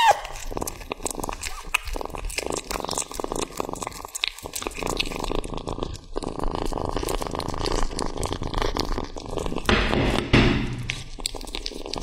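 A kitten chewing and tearing at a raw tomahawk steak: a quick, irregular run of wet clicks and smacks, with a louder scraping rasp about ten seconds in.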